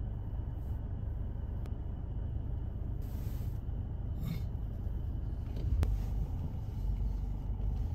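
Car heard from inside the cabin: a steady low rumble of engine and road as it moves slowly, with a brief hiss about three seconds in and a short thump near six seconds.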